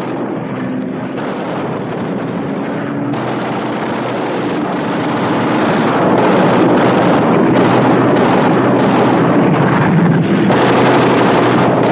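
Piston fighter aircraft engine and rushing air as a dubbed soundtrack, a rough steady drone that grows louder over the first six seconds of a strafing dive and then holds.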